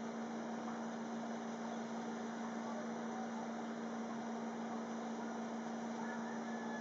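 Steady low hum on one unchanging pitch over a constant faint hiss: background room tone.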